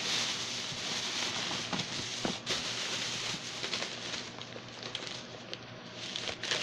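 Rustling and crinkling as things are rummaged through in a plastic tote of toys and bags: a steady papery hiss with many small clicks and taps.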